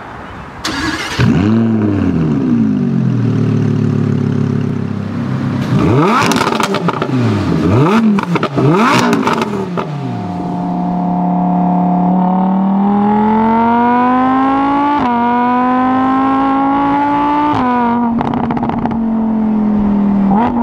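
Lamborghini Huracán LP610-4's 5.2-litre V10 engine revving: a few quick throttle blips that rise and fall in pitch, then from about halfway a hard pull rising steadily in pitch, broken by two upshifts where the pitch drops suddenly.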